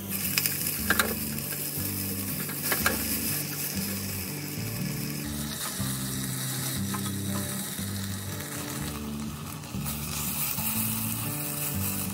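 Sliced onions and chillies sizzling in hot oil in a pot as they are stirred with a spatula, with a few sharp knocks of the spatula in the first few seconds. Soft background music with a low bass line plays underneath.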